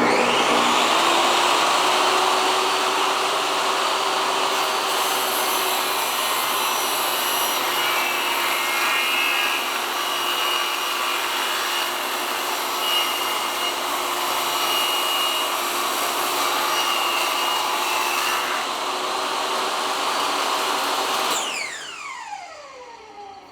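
Electric power saw starting up and cutting wood to trim a piece narrower, running steadily for about twenty seconds; near the end it is switched off and the motor winds down with a falling whine.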